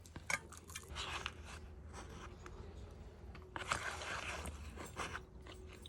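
Close-up eating sounds: irregular crunchy bites and chewing of crisp food, with a few scraping noises.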